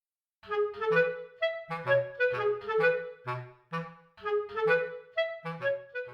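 Background music: a bouncy melody of short, separate notes over a light bass line, one phrase played twice.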